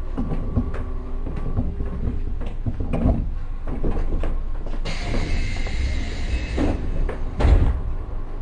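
Inside a Keio 7000 series electric train car at a station stop: a low rumble with scattered clicks and knocks, then about two seconds of compressed-air hissing and a heavy thump from the car's pneumatic sliding doors.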